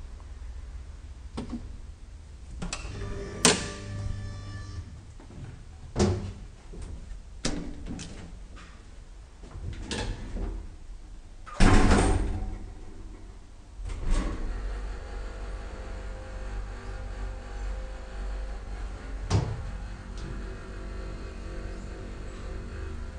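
Schindler hydraulic elevator in use: a series of knocks and sliding door sounds, the loudest clunk about twelve seconds in, then a steady mechanical hum with several held tones from about fourteen seconds in as the car travels, broken by one more knock.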